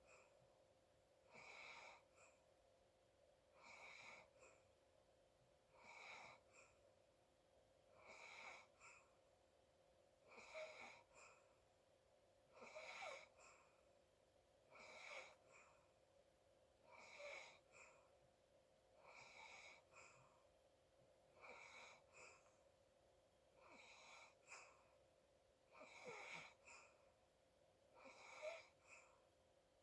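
A sleeping person's noisy, wheezy snoring breaths, faint and evenly paced, one about every two seconds.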